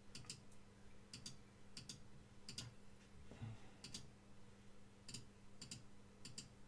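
Faint clicks of a computer mouse zooming into an image. Each click is a quick double tick, press and release, coming about every half second to second at an uneven pace.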